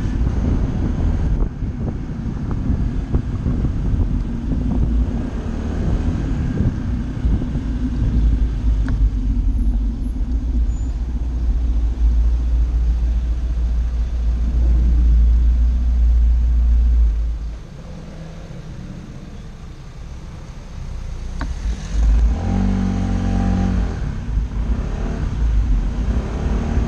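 Honda SH 125i scooter's single-cylinder four-stroke engine running on the move, under a heavy low rumble of wind on the mounted microphone. About two-thirds through it drops to a quieter idle for a few seconds, then the engine note rises as the scooter pulls away.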